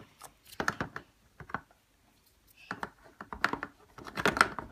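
Small plastic Play-Doh toy pieces and tools clicking and tapping as they are handled and fitted together, in irregular clusters of quick clicks.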